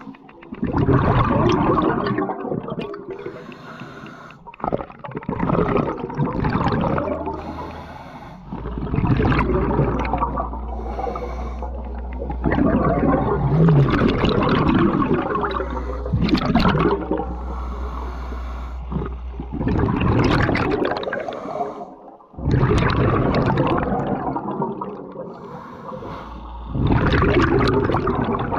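Scuba diver breathing through a regulator underwater: repeated cycles of a hissing inhalation and a gurgling rush of exhaled bubbles, about every three to four seconds. A low steady hum runs under the breaths through the middle of the stretch.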